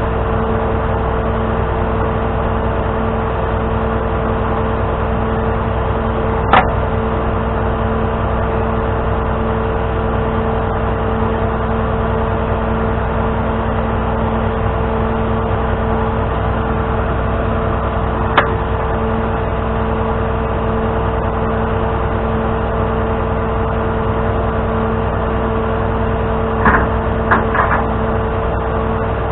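Tow truck engine running steadily, with a constant hum held at one pitch. A sharp click comes about six and a half seconds in, another near eighteen seconds, and a short cluster of clicks near the end.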